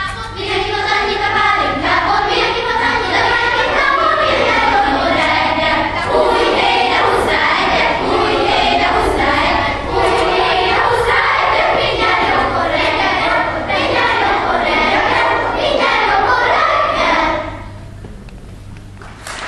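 School children's choir singing together, many young voices in harmony at a steady level; about two seconds before the end the singing stops and only a fainter noise remains.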